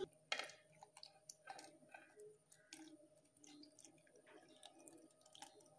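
Faint pouring of milk onto sliced bananas in a steel mixer-grinder jar: quiet scattered splashes and small clicks.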